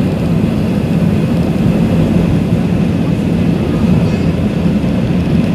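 Steady jet airliner cabin noise: a loud, even drone of engines and airflow, heavy in the low range, with a faint high whine above it.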